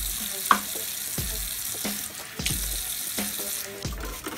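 Tap water running into a ceramic bathroom washbasin, a steady splashing that stops about three and a half seconds in.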